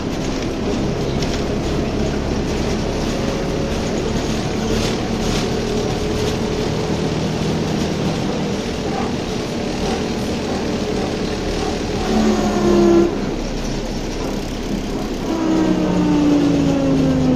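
Inside a BTZ-5201 trolleybus while it drives: steady ride and road noise with the electric drive's whine under it. A short louder whine comes about twelve seconds in, and another, falling in pitch, near the end.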